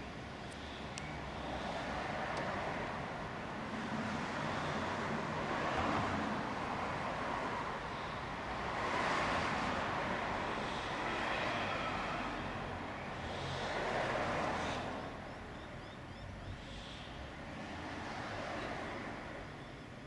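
Background motor-vehicle noise, a broad hum that swells and fades several times as vehicles pass.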